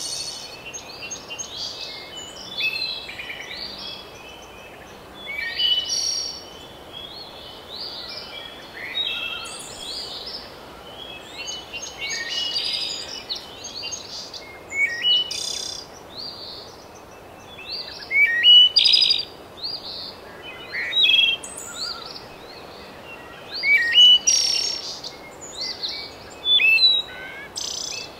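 Several songbirds singing and chirping in a continuous chorus of short, repeated phrases, over a steady background hiss.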